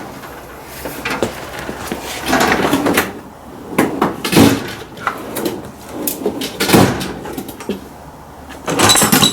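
Handling and rummaging of metal tools, a series of irregular clunks and knocks with sliding, drawer-like movements, as a toolbox or tool drawer is gone through.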